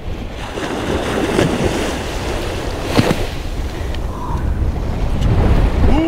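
Small surf waves washing onto a sandy beach, with strong wind rumbling on the microphone. There is one short bump about three seconds in.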